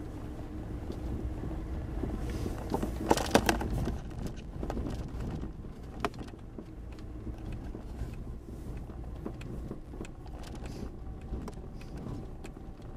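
Vehicle driving slowly along a sandy dirt track, heard from inside the cab: a steady low engine and tyre rumble, with a short cluster of loud rattling knocks about three seconds in and scattered single clicks.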